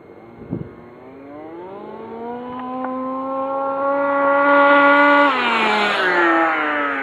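1/5-scale Baja 5B RC buggy's CY29RC 29cc two-stroke engine, fitted with a tuned expansion pipe and silencer, at full throttle on a speed run: its pitch climbs and grows louder as it approaches, then drops and fades as it passes. A short knock about half a second in.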